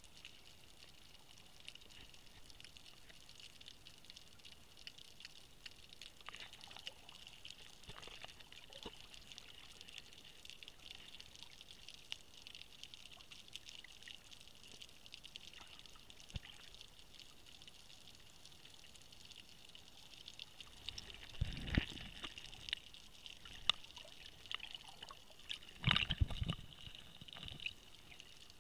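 Water heard through an underwater camera: a steady fine crackling hiss, with two louder bursts of bubbling and water churn near the end as swimmers move close by.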